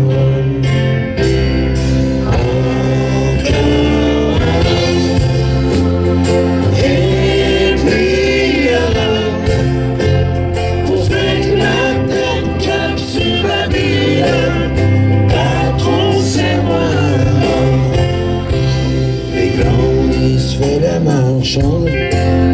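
Breton rock band playing live and loud: bass and drums keep a steady beat under guitars and keyboard, with a wavering lead melody on top, in a stretch between sung verses.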